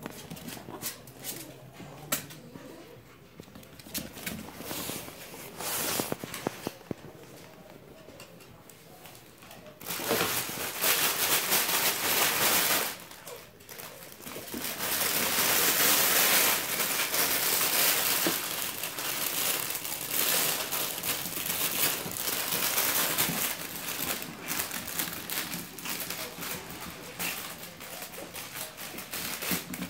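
Crinkly fabric play tunnel rustling and crackling as puppies scramble in and around it. It gets loud about ten seconds in, breaks off briefly, then carries on. Before that there are only scattered light clicks.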